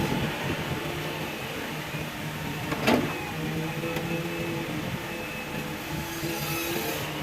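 Hitachi EX200 excavator's diesel engine running steadily under load, with one sharp knock about three seconds in.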